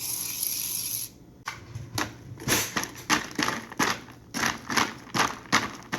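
About a second of hissing as the cold foam creamer is poured, then a run of rough rattling strokes, two or three a second, as the iced coffee is mixed.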